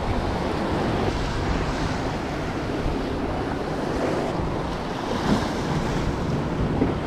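Ocean surf washing and breaking against jetty boulders, a steady rushing noise that swells a little near the end, with wind buffeting the microphone.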